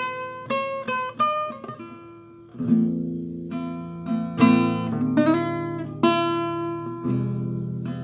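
Music on a plucked string instrument: a run of quick single picked notes, then fuller chords struck and left to ring, about one a second.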